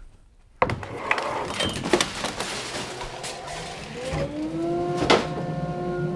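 A woodshop machine starting up. There is a sudden rush of noise, then a motor whine rises in pitch for about two seconds and settles into a steady drone. A sharp click comes about five seconds in.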